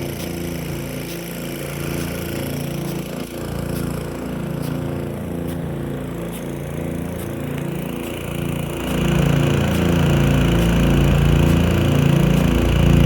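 Nelson P150 big gun sprinkler running with a .97-inch ring nozzle: a continuous rush of water over a pulsing low rumble, growing louder about nine seconds in.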